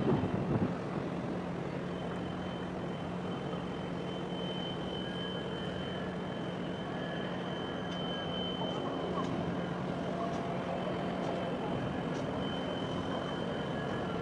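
Steady low engine drone, with a thin, steady high whine joining about two seconds in.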